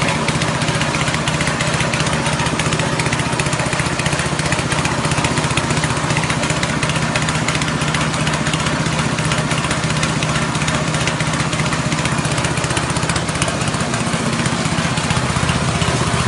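Small 6.5 HP petrol engine running steadily at constant speed, driving a rice-husk grinding machine.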